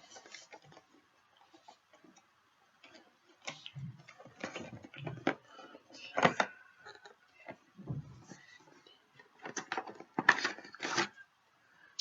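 A GoPro Hero 3's packaging being handled and opened by hand: scattered knocks, clicks and rustles. The loudest knocks come about six seconds in and again near the end.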